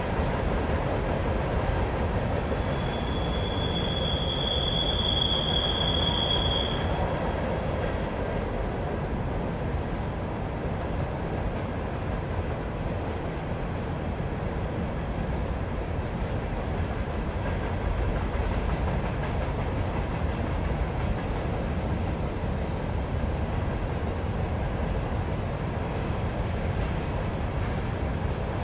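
Empty CSX coal train's hopper cars rolling past, a steady rumble of wheels on rail. A high steady squeal comes in about three seconds in and lasts a few seconds.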